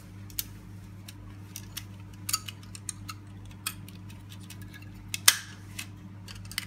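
Scattered sharp plastic clicks and taps from the battery pack and housing of a Zumtobel emergency light being handled, with the loudest click about five seconds in, over a steady low hum.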